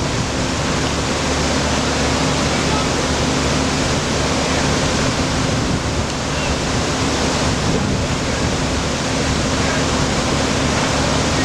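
Floodwater rushing steadily, a loud continuous wash of water noise, with a steady low hum underneath.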